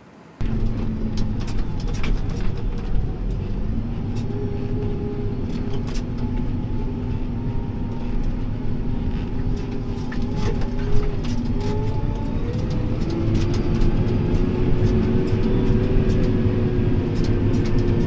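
Heavy farm machinery engine running steadily under load. It cuts in abruptly just after the start, and its pitch steps up and down a few times.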